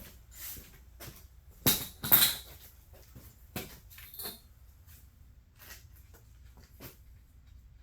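A series of sharp knocks and clinks, the loudest pair about two seconds in, two of them with a brief metallic ring.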